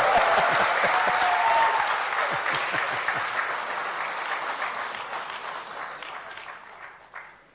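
Audience applauding, the clapping gradually dying away over about seven seconds.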